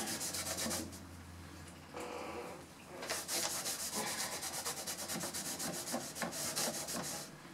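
A cloth rubbing wood stain into the inside of a wooden cabinet in quick back-and-forth strokes. The rubbing pauses from about one to three seconds in, then resumes and stops just before the end.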